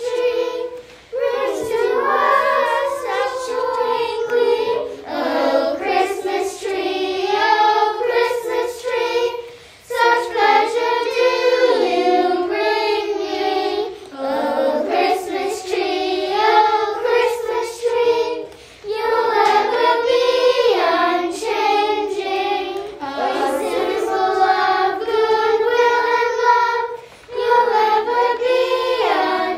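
Young girls singing a Christmas carol in phrases, with short breaks between the lines.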